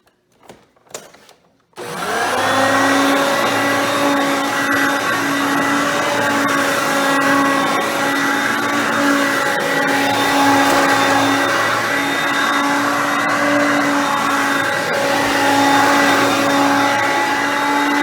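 Hoover Concept Two upright vacuum cleaner switched on about two seconds in, after a couple of clicks. Its motor spins up quickly and then runs steadily.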